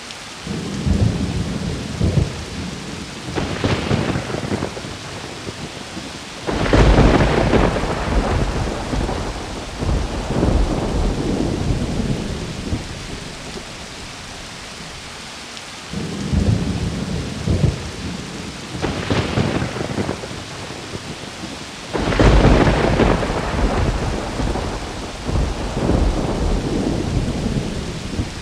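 Steady rain with repeated rolls of thunder; two thunderclaps stand out as the loudest, about a quarter and about three quarters of the way through, each rumbling on for a few seconds.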